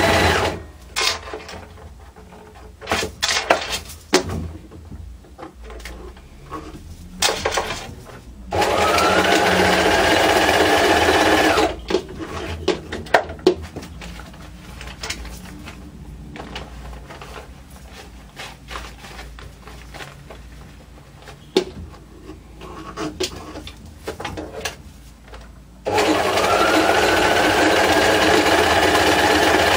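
Bernina sewing machine stitching through paper in runs. It stops just after the start, runs for about three seconds in the middle and starts again near the end, each time rising in pitch as it gets up to speed. Between runs there are scattered clicks and knocks as the paper is handled.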